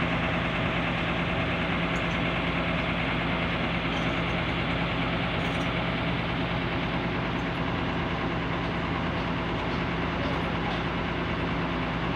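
A large diesel engine idling steadily with an even, unchanging hum.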